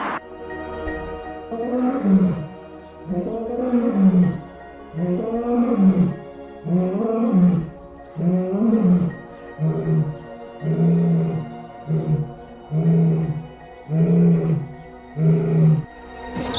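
A big cat calling in a long series of deep, pitched calls, roughly one a second. The early calls rise and fall in pitch and the later ones come out flatter and shorter, over soft background music.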